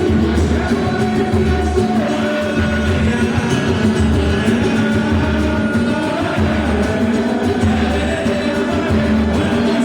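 Live samba (pagode) band playing, with singing over a steady bass beat.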